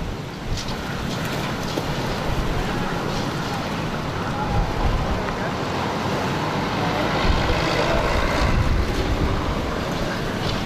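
Strong wind rushing steadily, with gusts now and then buffeting the microphone.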